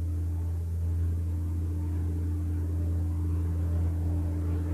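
Heavy-haul truck's diesel engine running steadily under load, a constant low drone that holds one pitch.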